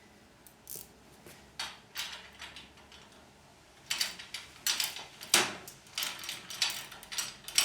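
Metal clicks and knocks of a spanner working bolts on a chainsaw mill frame as it is tightened up: a few scattered clicks at first, then a quick run of them from about halfway through.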